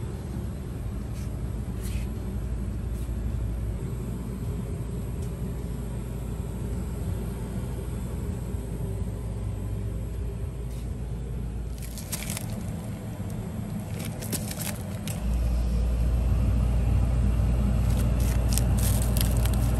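A steady low rumble and hum, which grows louder about three-quarters of the way through. Near the end, a hand handles plastic bags of frozen leaves in a freezer case, and they crinkle in quick clicks and crackles.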